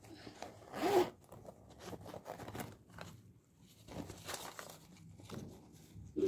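Zipper on a fabric pouch being pulled open in a short rasp about a second in, followed by softer handling and rustling of paper cut-outs as they are taken out of the pouch.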